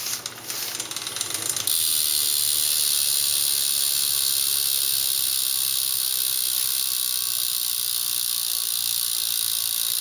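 BMX rear hub freewheeling as the wheel spins, its ratchet clicking: separate clicks at first, then about two seconds in a fast, even buzz that holds steady. A smooth ratchet sound, not too loud.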